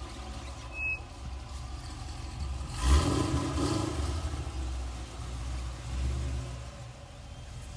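Car engine running and revving, with a short, louder burst about three seconds in and a brief high beep about a second in.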